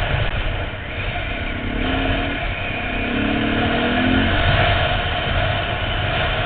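Dirt bike engine running under way, its note rising twice as the rider accelerates, heard from the helmet-mounted camera.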